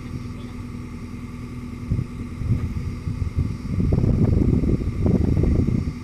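JCB 3DX backhoe loader's diesel engine running, steady at first, then louder and rougher from about four seconds in as the backhoe arm is worked.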